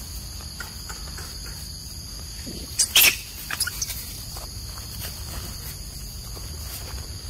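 Steady high-pitched insect chorus, with scattered faint clicks and rustles; a brief, loud, sharp sound about three seconds in.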